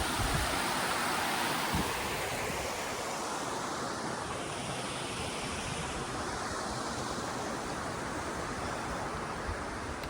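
Steady rush of flowing stream water, a little louder in the first two seconds.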